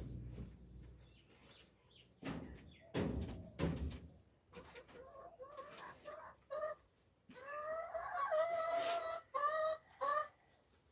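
Backyard hen clucking: a run of short clucks, then a longer drawn-out call, then a few more short clucks. A few knocks come before the clucking.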